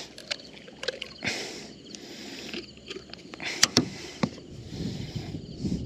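Scattered light knocks and clicks aboard a small boat, as gear and the hull are handled, over a faint steady hiss.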